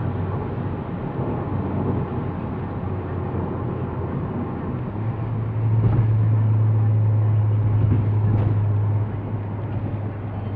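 Cabin sound of a VW Jetta's 2.0 TSI turbo four-cylinder at highway speed: a steady low engine drone over tyre and road noise. The drone gets louder for about four seconds in the middle, then drops back.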